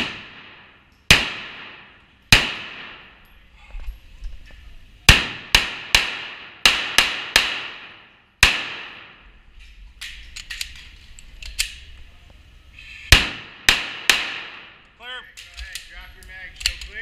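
A handgun firing a string of about a dozen shots at an uneven pace, some single and some in quick runs. Each shot rings with a long echo off the indoor range. There is a gap of a few seconds with only fainter shots before three more close together.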